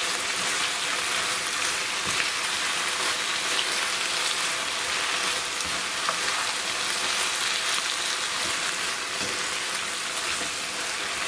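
Rice with mushrooms and herbs sizzling steadily in a hot pan while being stirred, with a few light knocks of the spoon against the pan.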